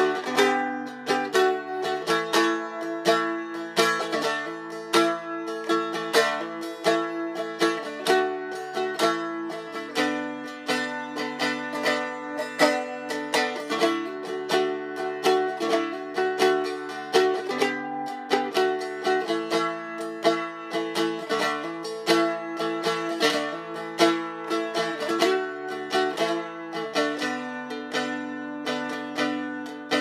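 Seagull Merlin stick dulcimer strummed rapidly, playing a diatonic folk melody over ringing drone strings, with the bass notes changing every second or two.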